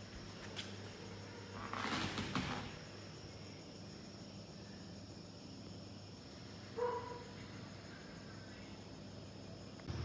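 Quiet background with a faint steady insect trill and a low hum; a brief rustle about two seconds in and a short faint tone near seven seconds.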